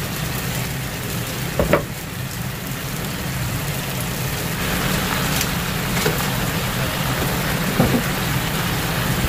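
Oyster-sauce mixture bubbling and sizzling around atsuage in a frying pan as it comes to a simmer, a steady hiss that grows louder about halfway through, over a low steady hum. Two brief knocks, one early and one near the end.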